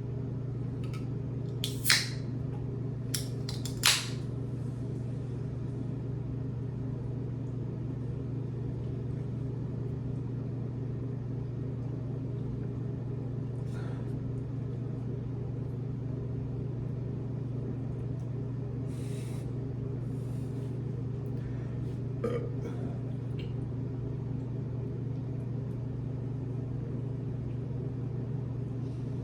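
Steady low hum, with two loud sharp clicks about two and four seconds in and a few fainter ticks and brief rustles later.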